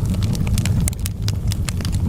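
Campfire burning: a steady low rumble of flames with frequent sharp, irregular crackles and pops from the burning wood.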